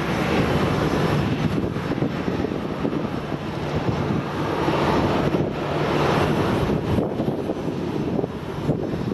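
CH-47J Chinook tandem-rotor helicopter running close by: a loud, steady rush of rotor and turbine noise that swells and eases slightly.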